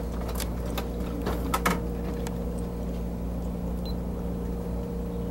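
Steady low mechanical hum inside a passenger train car, with a few short knocks in the first two seconds.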